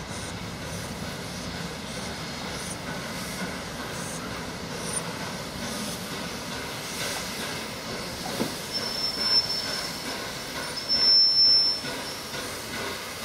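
Peppercorn Class A1 4-6-2 steam locomotive 60163 Tornado and its single coach rolling slowly through the station over the rails. From about nine seconds in there is a thin, high-pitched squeal of braking that is loudest near the end.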